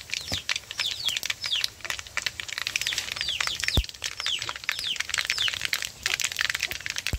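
Cumin seeds and dried red chillies crackling and popping in hot oil in an iron wok, with a bird chirping over and over in short falling notes.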